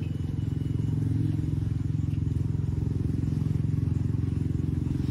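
A motorcycle engine idling steadily with a fast, even beat.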